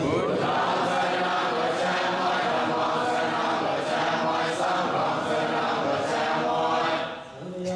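Buddhist devotional chanting by many voices together in unison, a dense group recitation that thins out near the end.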